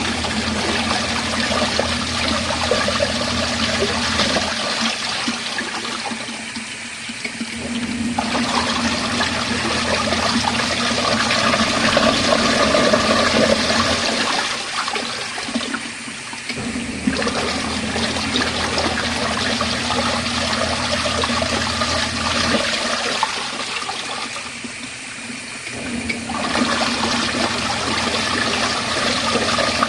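Small portable RV washing machine agitating a load of water, the motor running with water swirling and sloshing. The motor stops for a couple of seconds three times, pausing between wash strokes.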